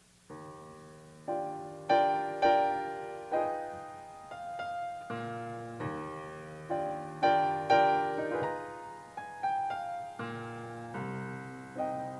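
Piano playing slow chords, each struck and left to fade.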